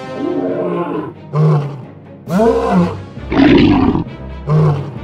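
Wild-animal roar sound effects, about five calls in a row, over background music.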